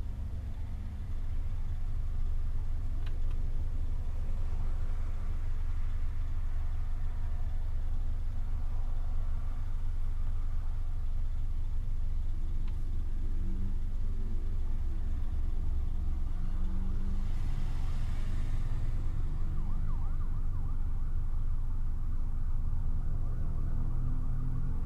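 Steady low rumble of a car driving, from its engine and tyres on the road.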